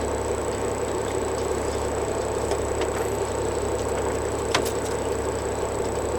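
Steady drone of a fishing boat's engine, with a couple of faint clicks about four and a half seconds in.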